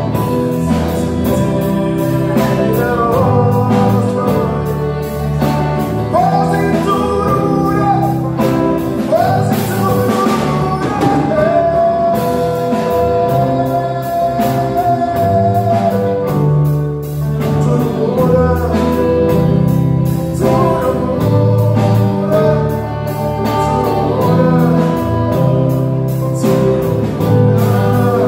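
A man singing into a microphone with a live band of drum kit and electric guitar playing behind him; the voice carries the melody over a steady beat.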